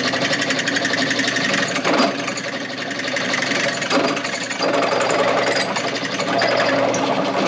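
Drill press with a 1/2-inch bit cutting through a car door hinge: a steady, rapid metallic chatter with a few sharper catches of the bit.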